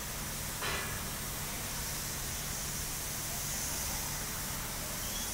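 Steady hiss of a robot's spray gun atomizing paint onto hanging automobile wheel hubs, over a low hum, with a brief louder burst of hiss just under a second in.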